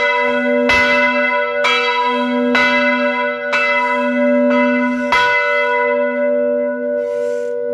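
Church bell rung by pulling its rope: strokes come about once a second, each with a rich ringing of overtones. The last stroke falls about five seconds in, and the bell then hums on and slowly fades.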